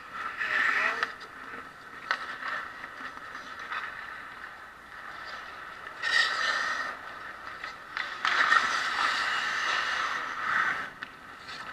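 Hockey skate blades scraping the ice close by in several bursts: briefly about a second in, again around six seconds in, and longest from about eight to eleven seconds, as the goalie moves and drops to the ice in his pads.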